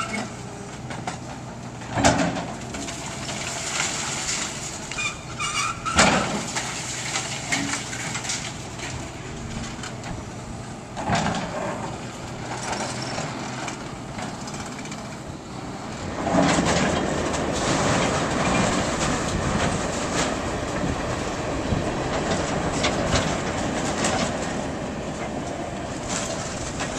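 Hitachi excavator demolishing a brick building, with sharp crashes of falling masonry about two and six seconds in and a smaller one near eleven seconds. From about sixteen seconds there is a longer stretch of crunching, clattering rubble, with the machine's engine running steadily underneath.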